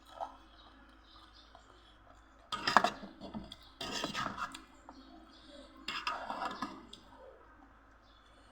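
Eating utensils clinking and scraping against a plate in three short bursts, the first with a sharp clink.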